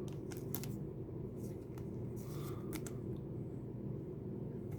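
Trading cards being handled and slid past one another, making a few faint clicks and swishes over a steady low hum.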